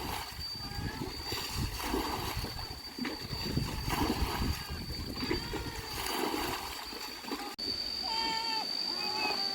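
Water splashing in repeated strokes about once a second, then short high voices or calls near the end.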